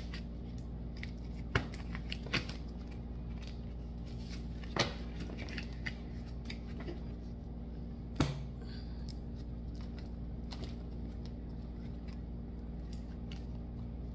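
Tarot cards being handled and set down on a table: a few scattered soft clicks and taps, the sharpest about eight seconds in, over a steady low hum.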